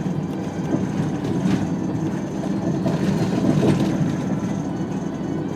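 Steady low rumble of a motor vehicle running, with a few faint knocks.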